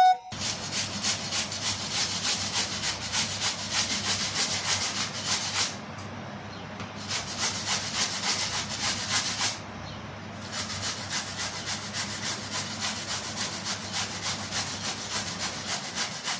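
Peeled raw mango being grated on a hand-held metal grater: fast, even rasping strokes, pausing briefly twice.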